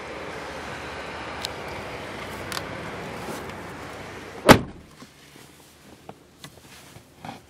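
A 2013 Kia Sorento's rear passenger door pulled shut from inside, closing with a single heavy thud about four and a half seconds in.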